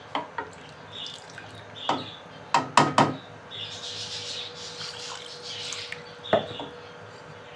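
Wooden spoon stirring a thin meat broth in a metal pot: the liquid sloshes, and the spoon knocks against the pot now and then, with a quick cluster of knocks about three seconds in and another single knock near the end.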